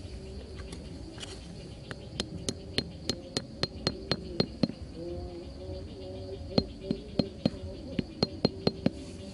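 A hatchet's blunt back tapping a small bamboo peg into hard dirt, giving sharp knocks about three to four a second. There are two runs of strikes, about ten and then about eight, with a short pause between.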